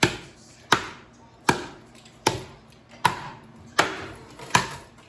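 Hammering: seven sharp knocks, evenly spaced about three quarters of a second apart, each with a short ring.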